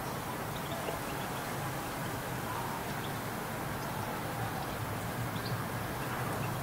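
Steady outdoor background hum, typical of distant urban traffic, with a few faint, very short high-pitched sounds scattered through it.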